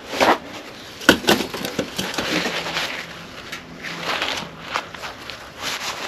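Handling noise from parts of a disassembled power steering pump being worked on: a sharp clink about a second in, then scraping and crackly rustling with scattered clicks.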